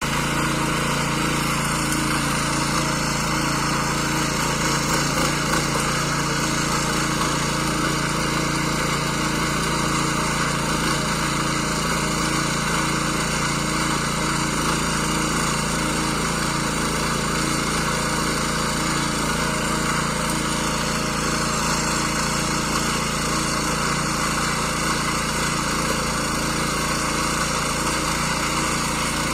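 Kaan 26S garden tiller's small engine running steadily under load as it works medium-hard soil.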